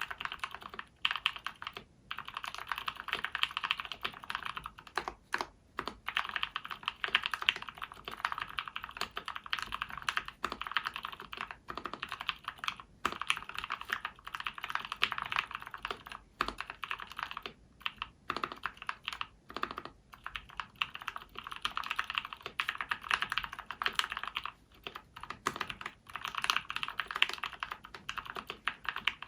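Continuous fast typing on a 60% mechanical keyboard with lubed SP-Star purple switches, a KBDfans Tofu acrylic case and a DZ60 PCB. It is a dense stream of key clacks, broken by short pauses every few seconds.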